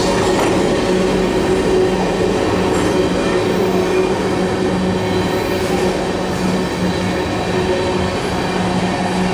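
Tank cars of a freight train rolling past on steel rails: a steady, loud rumble of wheels on track with a constant hum running through it.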